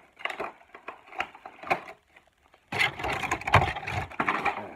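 Cardboard action-figure box and its plastic packaging being handled: scattered clicks and crinkles, a brief pause about two seconds in, then a dense stretch of crackling and rustling with a few low knocks for about two seconds.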